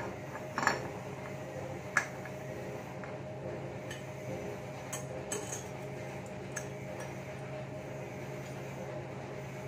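Metallic clinks and taps of CVT parts and tools being handled and fitted on a Honda Beat scooter's transmission: two sharper clinks in the first two seconds, then lighter ones until about six and a half seconds in. A steady low hum runs underneath.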